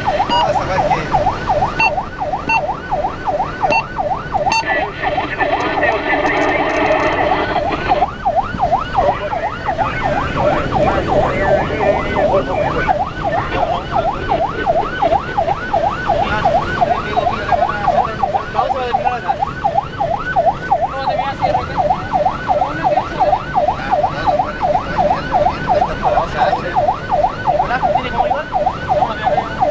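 Fire engine's siren heard from inside the cab, in fast yelp mode, rising and falling about three times a second without a break. About four seconds in, a steady horn blast joins it for three to four seconds and stops abruptly.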